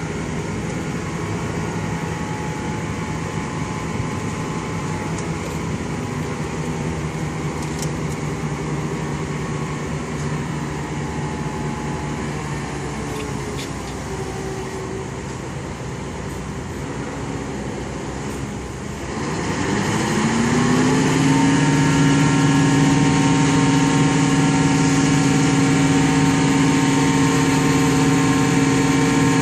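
Crane truck's diesel engine running steadily, then revving up a little past halfway and holding at a higher, louder engine speed.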